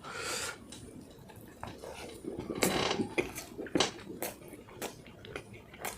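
Close-miked eating sounds: irregular chewing and mouth clicks, with a few sharp clicks.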